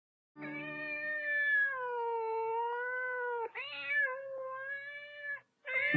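A cat giving two long, drawn-out meows, the first about three seconds long and the second about two, each wavering slightly in pitch.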